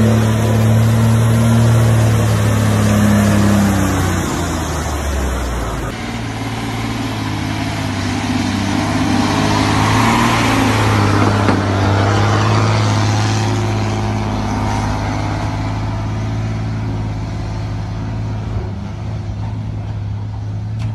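Heavy diesel truck engines running, heard across a series of short clips; the sound changes abruptly about six seconds in.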